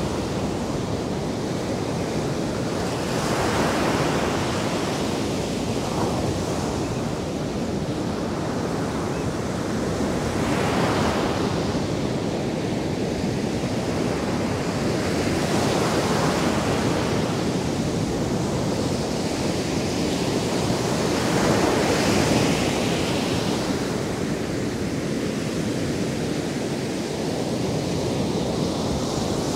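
Atlantic surf breaking on a sandy beach: a steady wash of water that swells as a wave breaks every five or six seconds.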